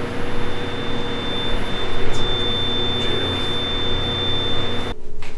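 Spirit box hissing loud static, with a steady high tone running through it, cutting off abruptly about five seconds in.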